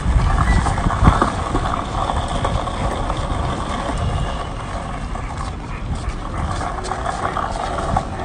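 Skateboard wheels rolling over paving slabs: a steady low rumble with a few knocks, the loudest about a second in.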